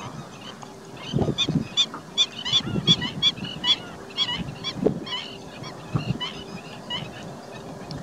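A flock of greater flamingos calling: many short calls in a rapid, overlapping run, beginning about a second in and thinning out toward the end.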